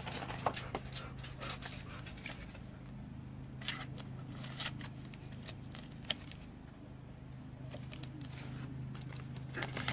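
Faint scattered clicks and rustles of trading cards being handled, over a steady low hum.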